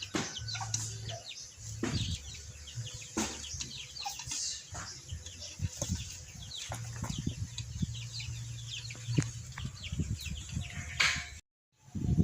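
Chickens clucking and flapping, mixed with scattered short clicks and rustling handling noises and an on-off low hum.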